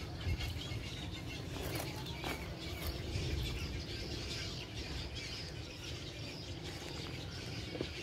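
Nesting colony of white egrets in mangrove trees, a steady background of bird calls and chatter, over a low rumble.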